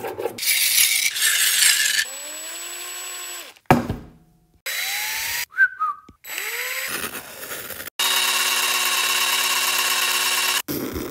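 A power tool motor in several short runs, spinning up and winding down in pitch, with a sharp knock a little under four seconds in. It ends in a steady high whine that lasts a few seconds.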